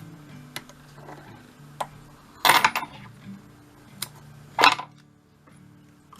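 Light clicks and short rustling handling sounds of small fly-tying tools and thread at the vise, two of them louder, over a steady low hum.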